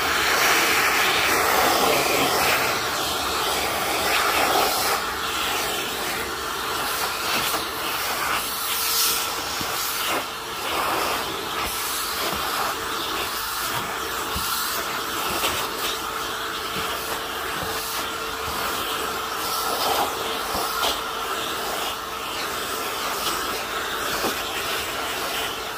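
Filter Queen Majestic canister vacuum running steadily, its round dusting brush drawn over a plastic grill housing to suck up fine dust. A rush of air with a faint steady whine under it.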